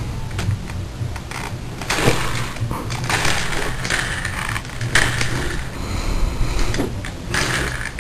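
Nitro RC monster truck making bursts of metallic rattling and clattering, each about half a second to a second and a half long, over a low rumble. These are the weird sounds whose soundness the owner is unsure of.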